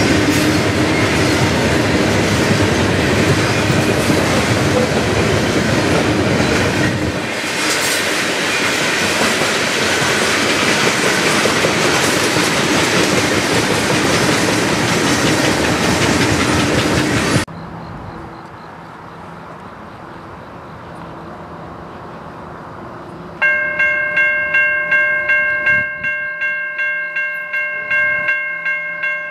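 Cars of a loaded coal train rolling past with steady wheel clatter, which cuts off suddenly about two-thirds of the way through. A few quieter seconds follow. Then, near the end, a grade crossing's warning bell starts ringing as the gates come down, about two to three strokes a second.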